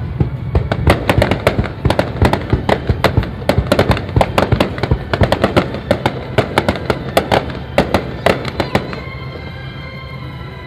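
Fireworks crackling: a dense, irregular run of sharp pops and cracks that thins out and stops about nine seconds in.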